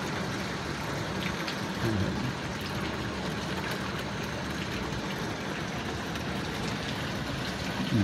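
Small hailstones falling steadily: an even hiss with occasional sharper ticks of stones striking hard surfaces.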